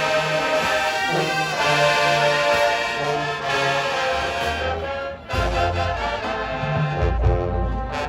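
High school marching band brass section playing held chords. Just after five seconds the sound dips briefly, then deep low notes come in loudly underneath the horns.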